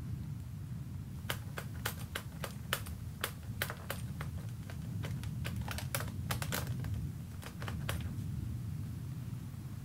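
A rapid, irregular run of about two dozen sharp plastic clicks, like an electric fan's push-button switches being pressed over and over, starting about a second in and stopping near the end, over a low steady hum.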